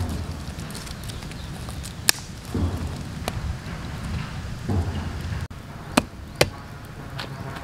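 Wood campfire crackling with a few sharp pops, mixed with low knocks of dry sticks being laid on smoking embers.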